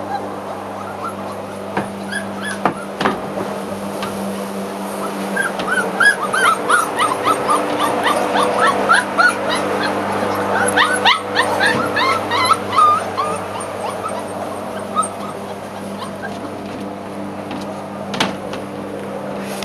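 Puppies whining and yipping in a quick string of short, high squeaks that peaks in the middle and then thins out, with a few sharp taps. A lawnmower engine hums steadily underneath.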